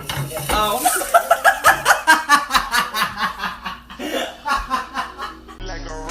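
A person laughing in a run of short, rapid chuckles, loudest about one to three seconds in.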